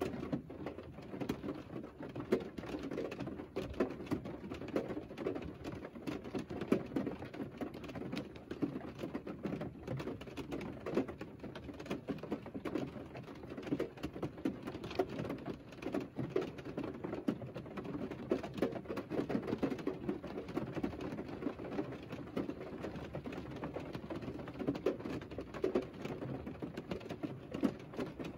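Rain falling on a car, heard from inside the closed cabin: a dense, uneven patter of drops over a low steady hiss.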